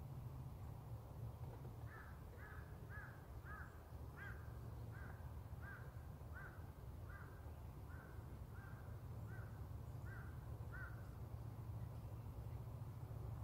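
A bird calling in a steady series of about fourteen short, clear notes, a little under two a second, starting about two seconds in and stopping near eleven seconds, over a steady low rumble.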